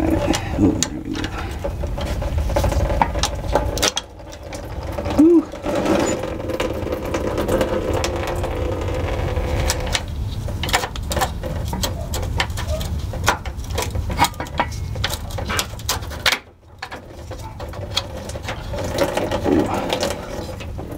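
Hand tools working at the fuel filter's line fittings and bracket as the old filter is unfastened: irregular metallic clicks and scrapes over a steady low hum.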